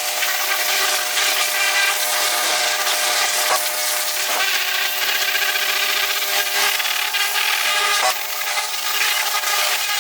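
Steady, loud rasping and scraping, like a tool rubbing or working against a surface, with a few sharp clicks.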